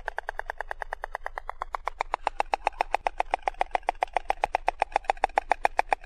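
White stork bill-clattering: a rapid, even rattle of many sharp clacks a second, made by snapping the bill open and shut. It grows louder about two seconds in.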